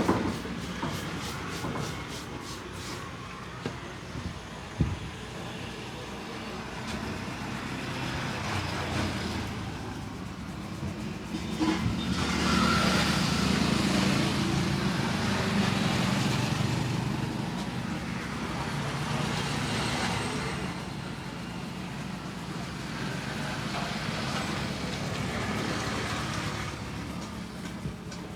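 Road traffic going by, rising and falling in long swells as vehicles pass. A quick, even run of taps at the start and a couple of sharp clicks a few seconds in.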